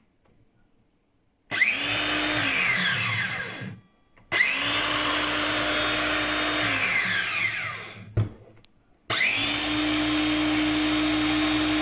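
Makita BSS611 18 V LXT cordless circular saw running free, switched on three times for a few seconds each and winding down with a falling whine after each release. It runs smoothly: the new controller board has brought the dead saw back to working order.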